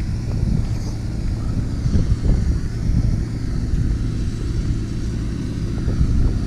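Wind buffeting an action camera's microphone: a low, uneven rumble that rises and falls in gusts.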